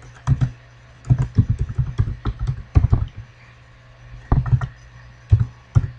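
Typing on a computer keyboard: a password being keyed in as quick keystroke clicks in short irregular clusters, over a faint steady low hum.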